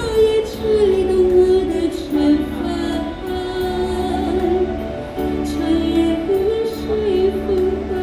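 A woman singing into a handheld microphone over recorded backing music, her melody moving phrase by phrase above held chords and a pulsing bass.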